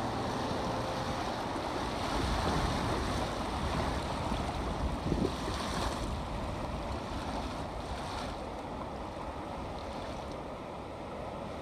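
Rushing water of river rapids heard from a small boat at water level, with wind buffeting the microphone. The rush eases a little after about eight seconds.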